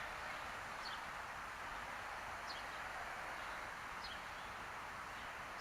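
A bird repeating a short, high, falling chirp about every second and a half over a steady outdoor hiss.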